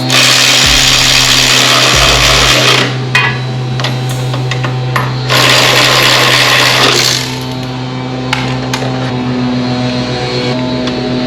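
A handheld power tool runs in two bursts, about three seconds and then about two seconds, driving in a motorcycle rear-shock mounting bolt. Clicks come between the bursts, and a steady low hum runs underneath.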